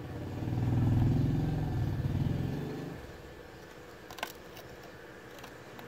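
A vehicle engine, pulsing rapidly, swells to a peak about a second in and fades away by three seconds, like a vehicle passing by. Two sharp clicks follow later.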